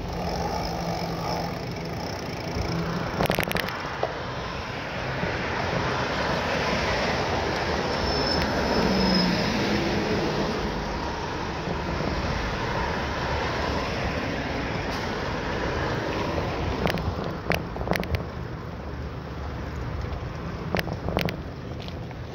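Steady rushing noise of a bicycle ride: wind and tyre noise on the camera's microphone, swelling about eight seconds in. A sharp click comes about three seconds in and a cluster of clicks and knocks near the end.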